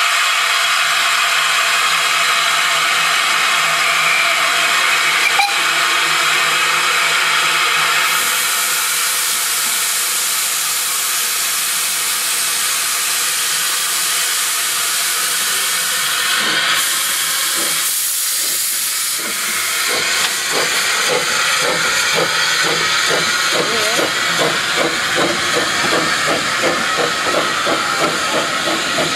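Loud steady hiss of steam venting from a small steam locomotive standing alongside. About twenty seconds in, the hiss thins and a regular rhythmic beat comes in as the train moves off.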